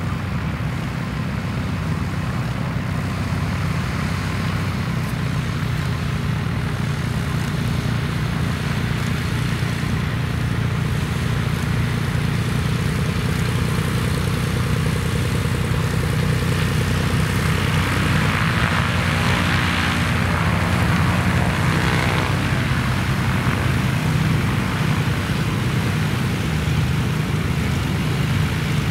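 Cessna TR182 Turbo Skylane RG's propeller and turbocharged piston engine running at low taxi power, a steady low buzz. About two-thirds of the way through it swells, with more hiss.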